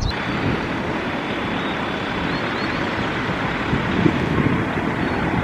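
Steady rush of passing vehicle traffic with wind noise on the microphone, and a few faint, short high chirps.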